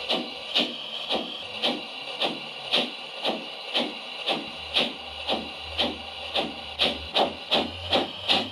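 LGB 20273 Rhaetian Railway G-scale model steam locomotive's sound unit giving steady steam chuffs in time with its wheels, about two a second at first and quickening to about three a second near the end. A low hum joins about halfway through.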